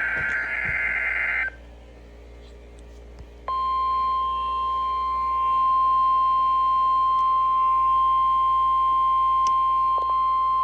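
Weather radio audio: a SAME digital header data burst ends about a second and a half in, followed by a couple of seconds of receiver hiss. Then the steady single-pitch 1050 Hz warning alarm tone starts about three and a half seconds in and holds, sounded for the weekly test of the warning alarm system.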